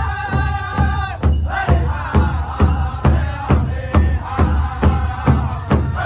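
Powwow drum group singing loudly in unison around a large shared drum, all striking it together in a steady beat of about two and a half strokes a second. A long held high note breaks off about a second in, then the singing goes on over the drumbeat.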